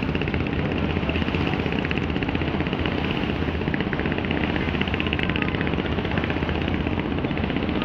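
Diesel engine of a bulkhead sand-carrier ship running steadily, a fast, even throb.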